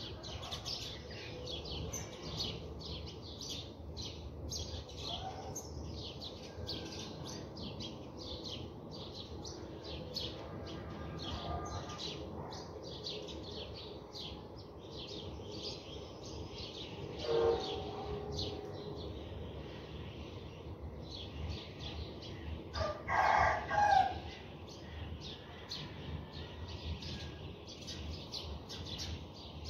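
Small birds chirping in quick short notes throughout. A louder, lower call comes a little past halfway, and a stronger two-part call about three-quarters through.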